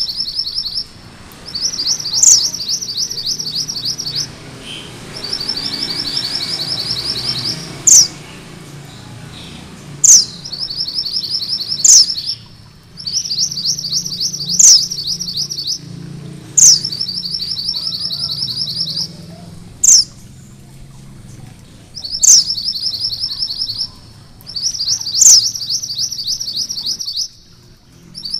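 Male red mountain minivet (mantenan gunung merah) singing its rolling song: a loud, sharp downward-slurred whistle followed by a fast rattling trill, repeated about every two seconds.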